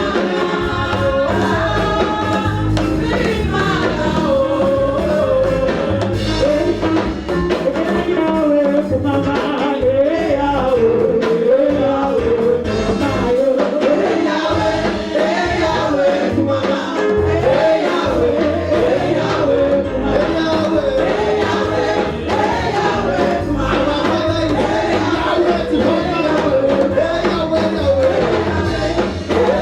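Gospel praise song: voices singing a melody over instrumental backing with a steady beat.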